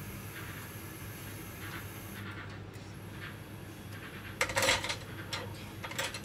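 Chicken frying quietly in a pan over a steady low hum, then a burst of clattering kitchen utensils or dishes about four seconds in and again shortly before the end.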